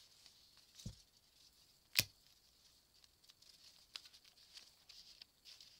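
Quiet rustling and small ticks of hands working paper strips and sticky tape, with a soft thump about a second in and one sharp click about two seconds in.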